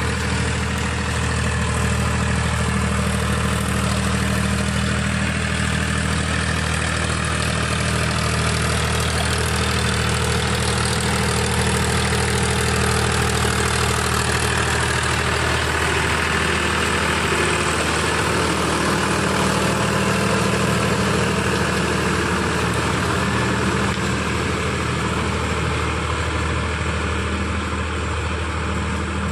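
Powertrac Euro tractor's diesel engine running steadily under load while driving a rotavator (rotary tiller) through the soil.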